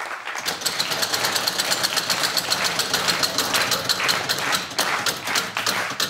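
Game-show prize wheel spinning, its metal pegs clicking against the pointer: the clicks come quickly at first and slow down as the wheel loses speed.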